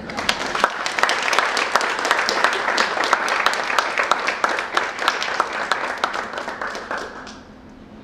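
Audience applauding, many hands clapping together, dying away about seven seconds in.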